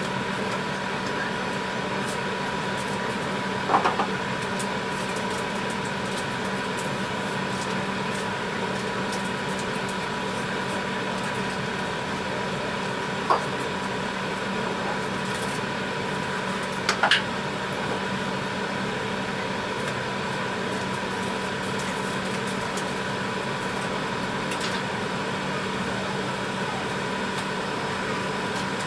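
A pan of tteokbokki at a rolling boil, heard over a steady machine hum from the kitchen. Three short pops stand out, about four seconds in, near the middle, and once more a few seconds later.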